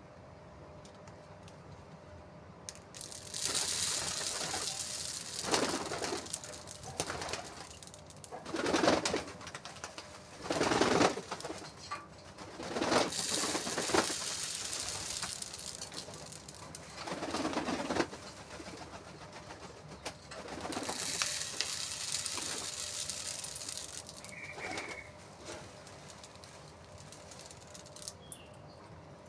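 Domestic pigeons cooing, a series of low coos a few seconds apart, with stretches of high hissing noise between them.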